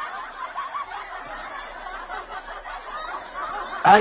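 Several people chuckling and snickering together, then a man's loud sneeze right at the end.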